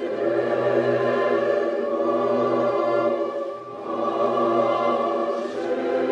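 Background music of sustained choral singing over orchestral accompaniment, with held chords that dip briefly about two thirds of the way through.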